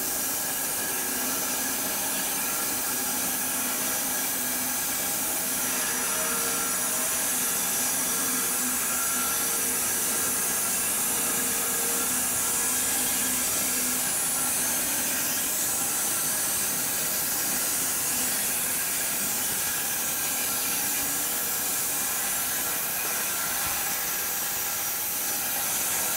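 Homemade bandsaw mill sawing through a large elm log: the blade cutting with a steady, even hiss and a faint hum of the running mill beneath.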